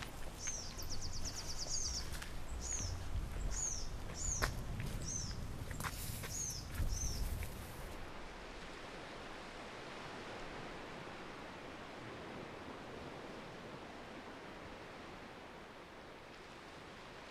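Small birds chirping: repeated short calls and one quick trill, over a low rumble. After about eight seconds this gives way abruptly to a steady wash of noise like distant surf.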